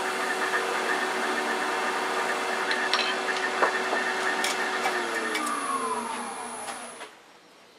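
Wood lathe running while a gouge cuts a thin spindle tip, with a few sharp cracks about three seconds in as the tip breaks off. Then the motor's whine falls in pitch as the lathe spins down, dying away shortly before the end.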